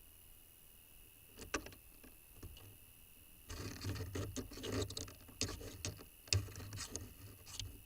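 Birds moving about inside a nest box: irregular scratching, scraping and knocking of feet and bodies on the box floor and walls. It starts about a second and a half in and is busiest from about three and a half seconds on.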